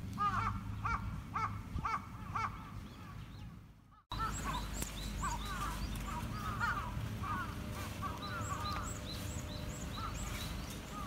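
A crow cawing about five times in quick succession. After a sudden dropout about four seconds in, small birds chirp and twitter over a low steady rumble.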